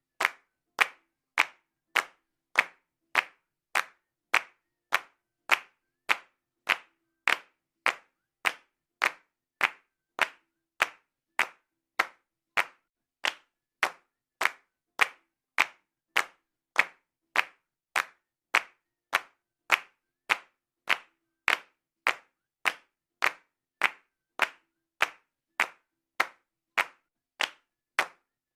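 Hand claps in a steady, even rhythm, a little under two claps a second, each clap alike in loudness, with dead silence between them.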